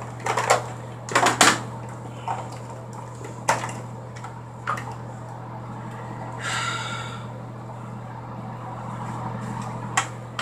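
Makeup things being handled: a few sharp clicks and taps as cases and tools are picked up and set down, with one short squeak a little past the middle, over a steady low hum.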